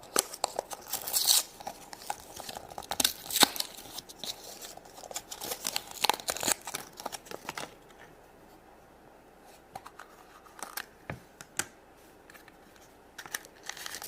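Toy packaging being torn open and crinkled, with quick sharp rustles and snaps for the first seven seconds or so, then only a few scattered small clicks and rustles.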